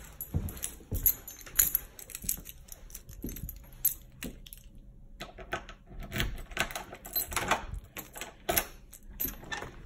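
Footsteps on a tiled floor, then a bunch of keys jangling and a key going into a door lock, a run of light clicks and rattles. The clicking pauses briefly about halfway and picks up again in the second half.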